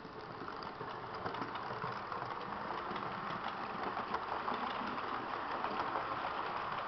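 H0-scale model train running past, hauling passenger coaches. It makes a steady running noise with many small clicks from the wheels on the track, getting louder over the first couple of seconds and then holding steady.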